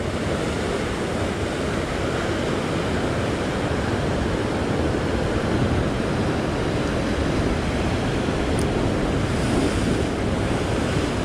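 Ocean surf breaking and washing over the coastal rocks, a steady rush of white water.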